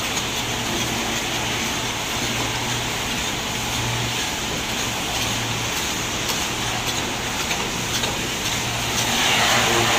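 Steady machinery noise: a low, wavering hum under a broad hiss, growing louder about nine seconds in.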